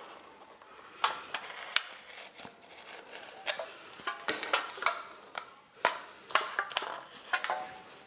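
Knife cutting rolled butter pastry around an aluminium foil pie cup: irregular light clicks and taps of the blade against the foil and the counter, a few with a brief metallic ring.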